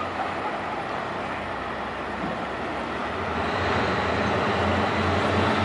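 Tugboat's diesel engine running under load, growing louder about three and a half seconds in as a thin high whine from its turbocharger comes in.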